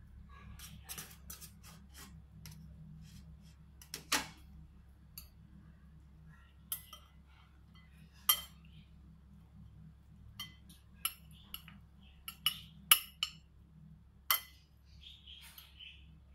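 A metal spoon clinking and tapping against an aluminium steamer tray: about ten scattered sharp clinks over a steady low hum.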